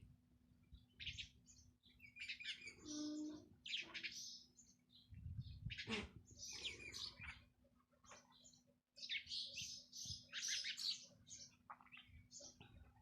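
Small birds chirping and twittering in quick clusters of short, high calls, with brief pauses between clusters.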